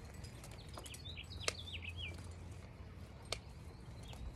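A wild bird calling: a quick run of high, down-slurred chirps starting about a second in. Two sharp clicks stand out, one about a second and a half in and one at about three and a half seconds.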